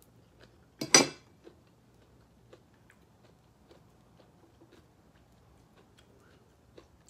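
Eating at a meal: one short, loud, crisp crunch about a second in, then faint scattered clicks of chewing and utensils.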